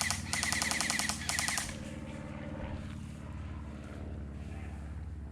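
Airsoft rifle firing in short full-auto bursts: rapid, evenly spaced clicks with a high whine under them. There are three bursts in the first two seconds, the middle one the longest.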